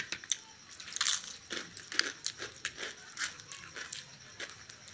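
Crisp fried pakodas (Indian gram-flour fritters) being bitten and chewed, with many irregular crunchy crackles.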